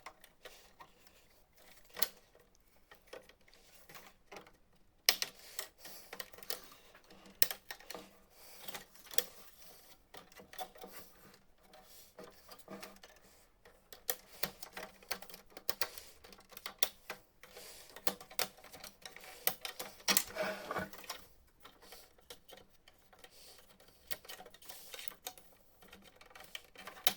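Irregular plastic clicks, snaps and knocks as latches on a Canon MF4410 laser printer are pressed and its plastic parts are pulled out and handled.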